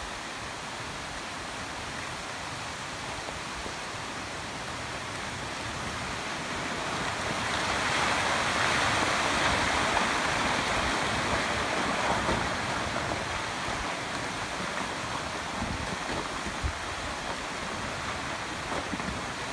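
Rockfall: a rushing, hissing stream of loose rock and scree sliding down the slope, swelling for several seconds and then easing off, with a few dull knocks near the end.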